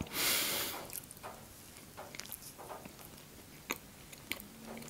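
Close-miked soft chewing of a basket pastry, with faint wet mouth clicks. A brief breathy hiss of air at the start is the loudest moment.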